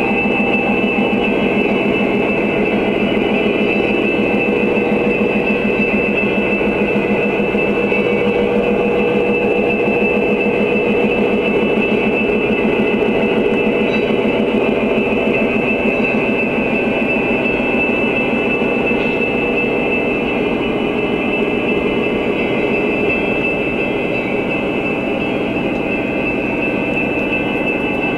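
Lionel O-gauge model freight train running past on three-rail track: a steady mechanical whir and rumble of wheels and motors with a few held whining tones, easing off slightly near the end.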